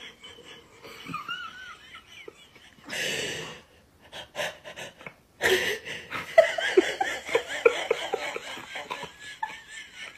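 A person laughing in repeated breathy bursts, with a sharp breath about three seconds in and the laughter strongest in the second half.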